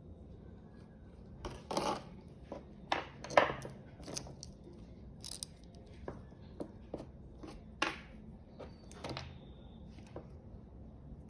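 About a dozen irregular clicks, taps and short rustles of small objects being handled, the loudest about three and a half seconds in.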